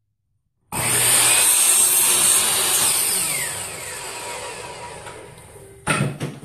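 Electric miter saw starting abruptly about a second in and cutting through two stacked wooden boards, then the blade winding down with a falling whine over several seconds. A couple of sharp knocks near the end.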